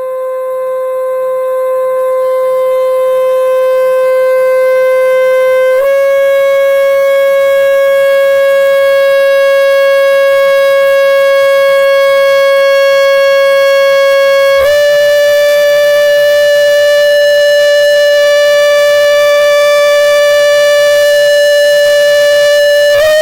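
A loud, sustained buzzy tone with many overtones, swelling over the first few seconds and then holding steady. Its pitch steps up abruptly about six seconds in, again about fifteen seconds in, and once more near the end.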